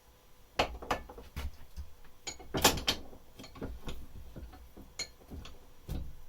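Metal parts and hand tools handled on a workbench: a string of irregular knocks and clanks, some with a brief metallic ring, the loudest about two and a half seconds in.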